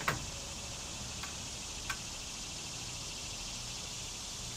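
A few sharp clicks as a hitch bike rack's frame clamp is handled and positioned: a loud one right at the start, then two fainter ones about a second and two seconds in. They sound over a steady high hiss of insects.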